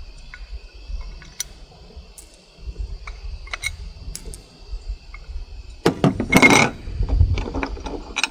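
Small metal parts and hardware clinking and rattling as they are handled and sorted, scattered sharp clicks with a louder jumble of rattling about six seconds in.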